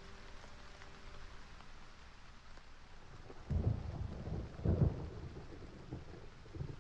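Steady rain against a window, with thunder rumbling in twice about halfway through.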